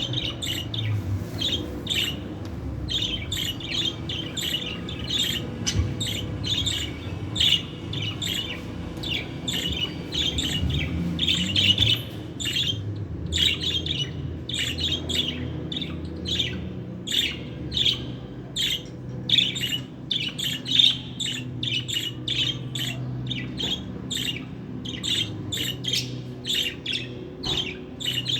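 Female budgerigar chirping and chattering: a fast, unbroken string of short high chirps, several a second.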